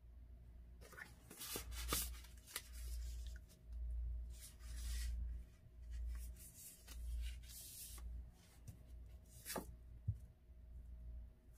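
Photo prints and paper being slid and shuffled around on a work surface: soft sliding and rustling in several short spells, with a few light taps.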